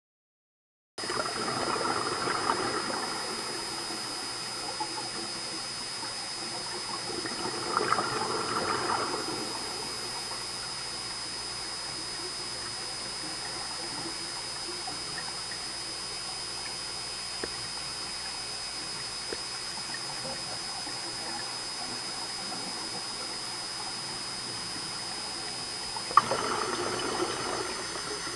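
Underwater recording: a steady hiss with a thin high whine, broken three times by a rush of exhaled scuba regulator bubbles, about a second in, about eight seconds in, and near the end.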